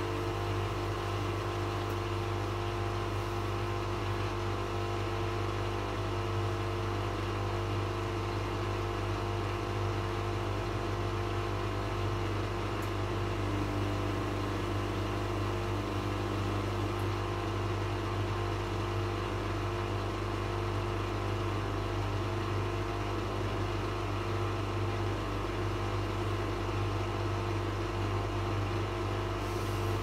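Bush WMNB712EW washing machine draining between rinses: its drain pump runs with a steady low hum and a few higher tones over it.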